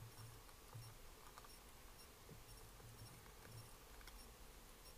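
Near silence with the faint clicks and chewing of a cat eating from a metal dish, over steady hiss.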